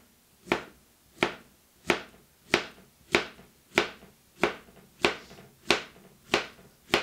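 A large kitchen knife slicing through a peeled banana and knocking on a plastic chopping board, a sharp tap at each cut. The taps come steadily, about three every two seconds, eleven in all.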